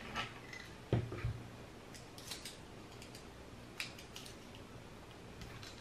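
A few faint clicks and light knocks of small hand tools and the metal welder case being handled on a table, the clearest knock about a second in.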